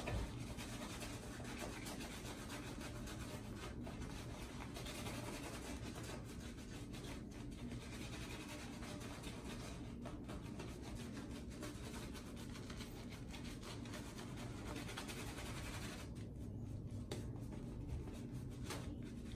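Shaving brush full of shave soap lather being swirled and rubbed over the face and neck to build the lather: a faint, steady bristly rubbing.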